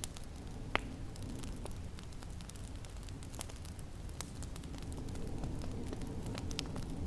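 Wood fire in a fireplace crackling, with scattered sharp pops over a low steady rumble; one louder pop comes about a second in.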